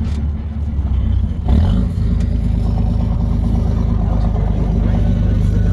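Boat engine running under way with a steady low hum. About a second and a half in it rises briefly in pitch, then holds steady.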